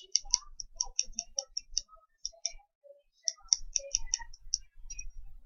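Quick runs of small, sharp, high-pitched clicks, about four or five a second, with a short pause a little past halfway.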